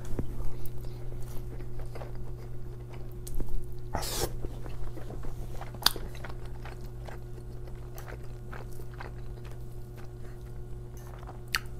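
Close-miked chewing of a large mouthful of spaghetti and rice: wet mouth clicks and smacks scattered throughout, with one louder burst about four seconds in.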